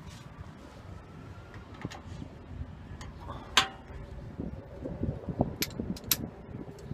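Hand tools clinking and clicking against metal while the nut and stud on a car's starter connection are worked on, with one sharp click about three and a half seconds in and a run of dull knocks and further clicks after it.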